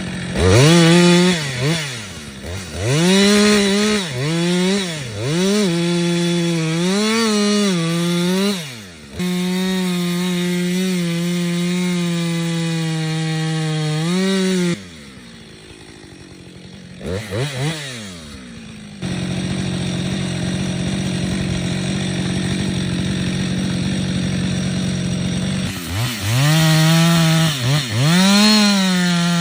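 Chainsaw engine felling a tree: revving up and down again and again, holding steady at high speed for long stretches, and dropping off briefly about halfway through.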